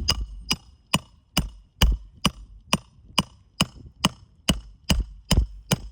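Hammer driving nails into a new roof shingle: steady blows a little over two a second, each with a short ring.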